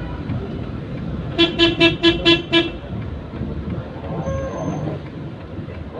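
A vehicle horn gives six short, rapid toots, about five a second, over the steady rumble of a moving vehicle's engine and road noise.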